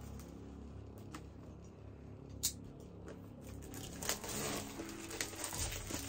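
Hands handling a shrink-wrapped Funko Pop box: a few sharp clicks, the loudest about two and a half seconds in, then crinkling of the plastic shrink wrap from about four seconds in.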